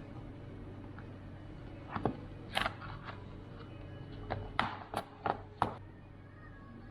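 Object handling: a series of short clicks and rustling taps in the middle of the stretch, over a steady low hum.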